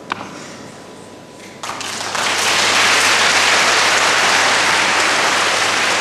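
Audience applauding, starting about one and a half seconds in, quickly swelling and then holding steady.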